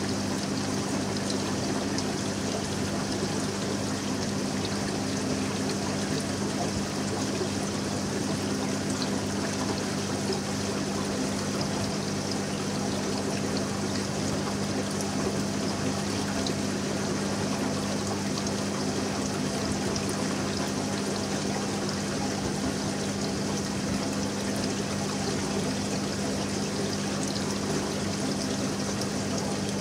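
Marine reef aquarium's circulating water: steady trickling and pouring with a constant low hum underneath, unchanging throughout.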